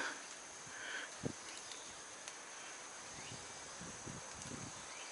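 Faint outdoor ambience: a steady high insect drone, with a few soft low knocks scattered through it.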